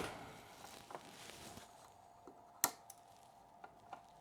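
Faint handling noises of cables and parts being moved on the bike, with a few light clicks and one sharper click about two-thirds of the way through.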